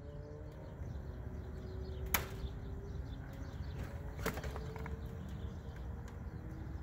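Two sharp clicks about two seconds apart as plastic security clips and the chrome grille panel of a Freightliner Cascadia are worked by hand, with a low steady rumble behind.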